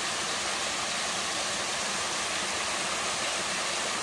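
Small waterfall pouring over rock into a pool: a steady rush of falling water.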